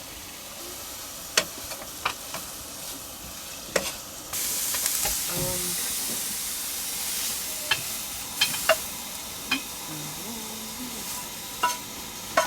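Broccoli sizzling as it fries in a pan, stirred with a utensil that clicks and knocks against the pan now and then. The sizzle grows much louder about four seconds in.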